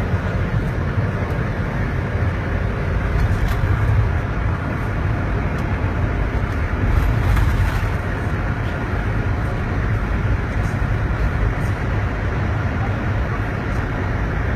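A car driving at a steady pace: continuous engine and road noise with a strong low rumble and no sudden events.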